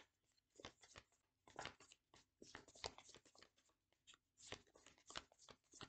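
A deck of cards being shuffled by hand: faint, irregular flicks and taps as the cards slide and strike one another.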